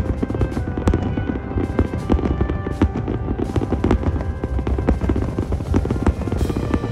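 A dense fireworks barrage: many shells bursting in quick succession, a rapid run of bangs and crackles over a continuous low rumble, with music playing along.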